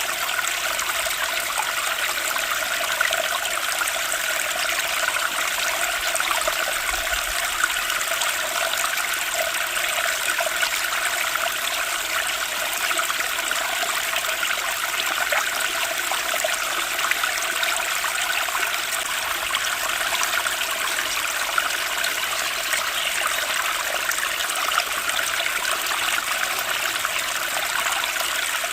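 Flowing water, running steadily and evenly without a break.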